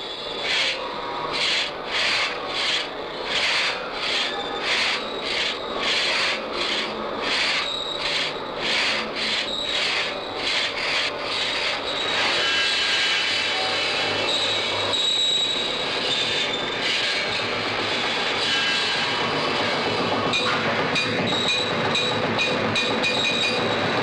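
Hand saw cutting through a wooden log in regular back-and-forth strokes, about two a second. About halfway through, the strokes give way to a steadier, continuous rasping noise with a faint high whine.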